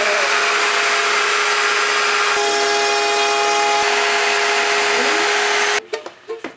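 CNC router spindle running and milling a wooden board: a loud steady hiss with a steady whine through it. It cuts off suddenly near the end, and a few light knocks follow.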